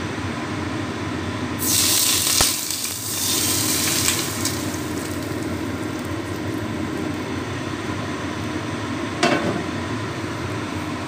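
Hot oil poured over shredded spring onion and ginger on a steamed grouper, sizzling sharply for about three seconds starting about a second and a half in, with a brief second burst near the end.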